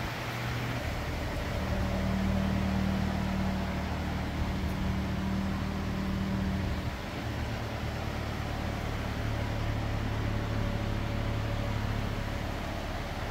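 A 2018 Toyota Corolla's engine idling: a steady low hum whose pitch shifts slightly a couple of times, with no siren sounding.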